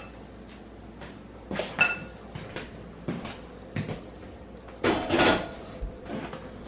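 Kitchen cupboard and dish handling: a few separate knocks and clinks, one with a short ring, and a louder half-second clatter about five seconds in.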